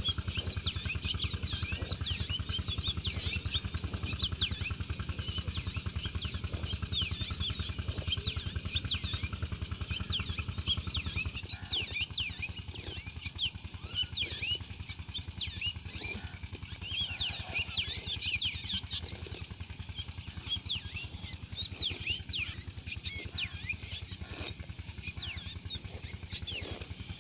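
Small birds chirping busily, many short high chirps overlapping without pause, over a low steady hum that stops about eleven seconds in.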